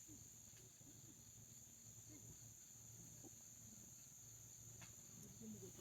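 Faint outdoor background with a steady high-pitched insect drone throughout and faint distant voices.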